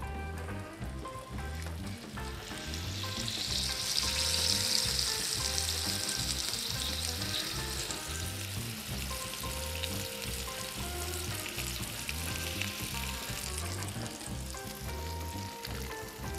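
Sausage and bacon sizzling on a hot flat-top griddle and in a carbon steel pan, with the sausage pressed flat under a metal smash press. The sizzle swells louder from about three seconds in until about eight seconds, then settles to a steady frying hiss. Faint background music with a steady beat runs underneath.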